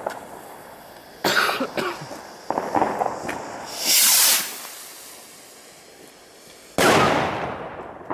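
Firecrackers going off: a loud bang about a second in, a few smaller cracks, a short bright hiss around four seconds, then a second heavy bang just before seven seconds that fades away slowly.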